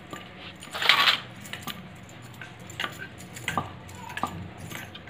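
Light taps and clinks of hands and dough against a steel plate as dough ropes are broken into pieces, with a brief scratchy noise about a second in.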